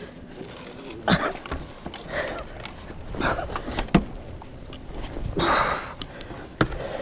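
Two people heaving a dropped Honda Rebel 500 motorcycle upright off the grass: short strained breaths and grunts of effort, with a few sharp clunks from the bike as it is lifted.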